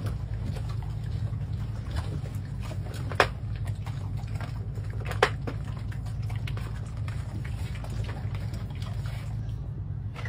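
Engine of a small shuttle bus running, a steady low drone heard inside the cabin, with two sharp clicks about three and five seconds in.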